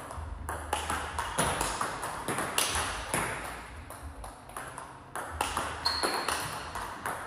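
Table tennis ball striking bats and the table in quick succession during a drill, a series of sharp clicks several times a second at an uneven rhythm.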